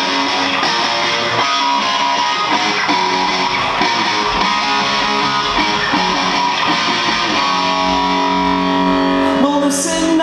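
Live rock band playing: electric guitar and bass guitar, loud and steady, with a drum kit behind them.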